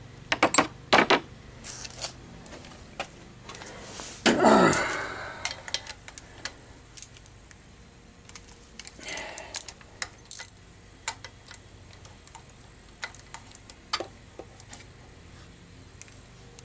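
Hand tools and small metal parts clinking and rattling while a carburetor is being unbolted, with scattered sharp clicks and a louder clatter about four seconds in.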